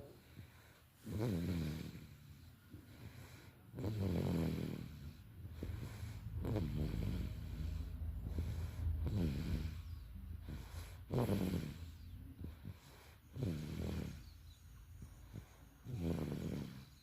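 Baby snoring in its sleep, one low snore with each breath, about every two to three seconds.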